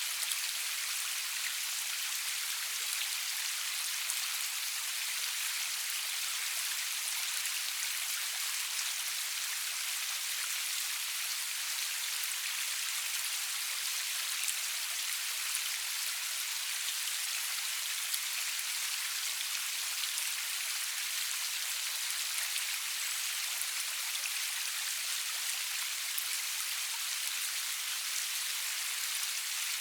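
Steady rain falling, an even hiss of many drops with faint individual drop ticks, no thunder.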